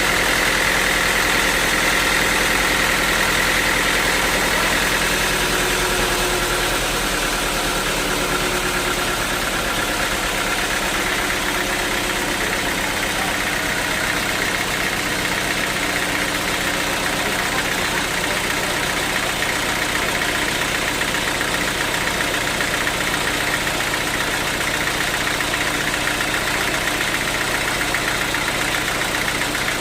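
Sawmill machinery running steadily, with a higher whine that eases off about five seconds in.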